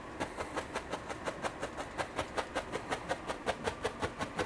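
A stiff 1-inch paintbrush tapped repeatedly against a stretched canvas, dabbing on oil paint: a quick, steady run of soft taps at about six a second.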